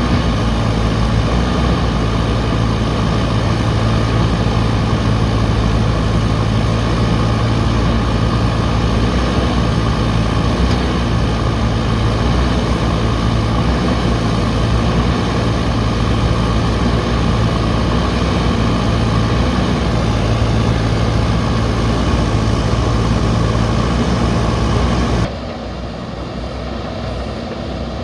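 Diesel engine of a JCB backhoe loader running steadily at a constant speed, loud and close. About 25 seconds in the sound drops suddenly to a quieter, more distant machine sound.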